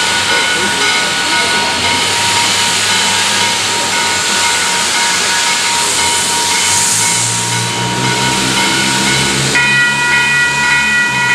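Steam locomotive 1309, a 2-6-6-2 Mallet, hissing loudly as it vents steam, with steady whistling tones over the hiss that grow louder about ten seconds in. A low hum joins in partway through.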